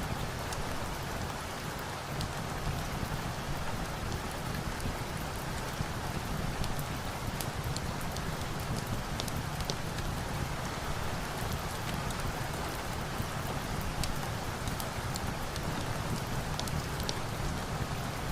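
Steady rain falling, mixed with scattered sharp crackles of a wood fire.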